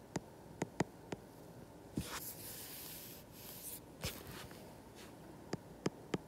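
Stylus writing on a tablet's glass screen. There are several sharp taps, and a longer scratchy stroke about two to four seconds in.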